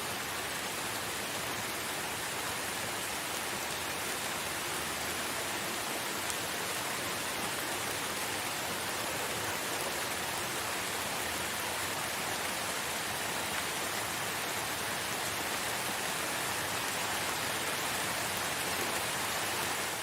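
Steady rain: an even, unbroken hiss of falling rain with no distinct drops, thunder or other sounds standing out.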